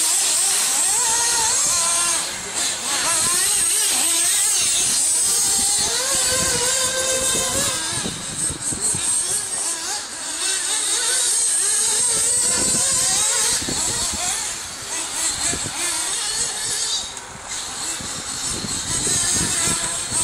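Motors of radio-controlled off-road racing buggies running hard, buzzing with a pitch that rises and falls as the throttle opens and closes, easing off briefly several times.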